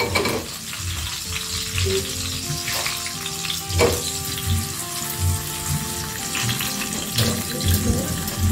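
Vegetable oil sizzling and crackling as whole spice-paste ingredients (shallot, garlic, chilli, candlenut) fry in a pan shaken over a gas flame. Music with a melody and a steady beat plays underneath.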